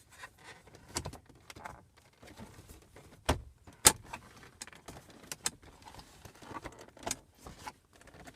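Scattered clicks, knocks and rustles of parts being handled while the lower shift boot is worked back into place under a short-throw shifter. Two sharper knocks come about three and a half seconds in.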